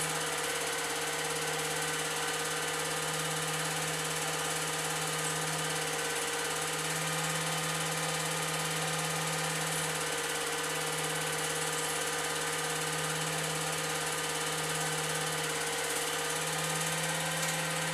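An old 8 mm film projector running: a steady mechanical hum that holds level throughout.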